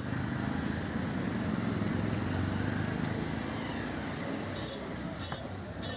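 A hilsa fish being scaled against the edge of an upright boti blade: a few short, bright scraping strokes about three-quarters of the way in, over a steady background din.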